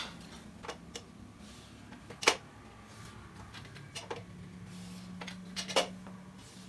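A handful of short taps and knocks from a ruler and marker against a whiteboard as lines are ruled, the loudest a little over two seconds in, over a faint low steady hum.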